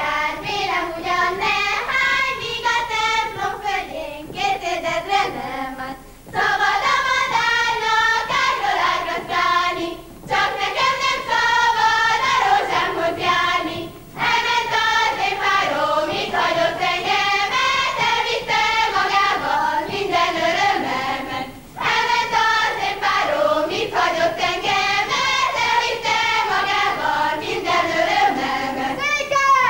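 A group of young women sings a Bukovina Hungarian folk song together, in phrases of about four seconds with short breaks for breath between them.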